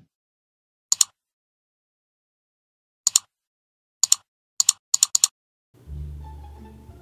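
Computer mouse clicks, about six quick double clicks spaced apart, the later ones coming closer together. Music with a low bass line starts near the end.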